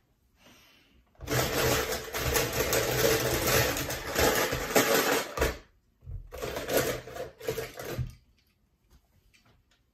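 Die-cast toy cars clattering against each other and the sides of a plastic bowl as they are stirred by hand. There are two bouts: a long one starting about a second in, and a shorter one about six seconds in.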